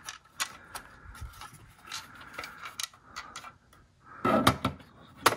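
Light plastic clicks and taps as the lamp cover of a Panasonic PT-AE8000 projector is handled and offered up to the lamp compartment. A louder cluster of knocks comes about four seconds in.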